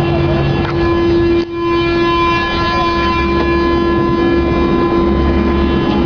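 Rubber-tyred MP-82 metro train's chopper traction control whining in several steady tones over the rumble of the moving train. The whine drops out briefly about a second and a half in.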